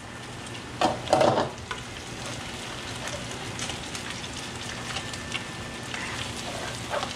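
Pieces of meat frying in oil in a pan, stirred with a spatula: a steady sizzling hiss with scraping. Two loud brief clatters come about a second in.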